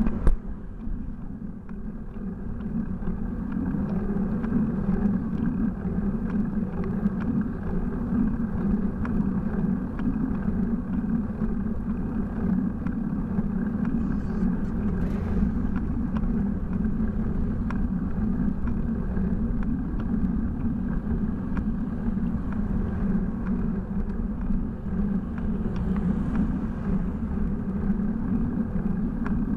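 Steady rumble of wind and road noise picked up by a bicycle-mounted Cycliq camera's microphone while riding, muffled and even throughout.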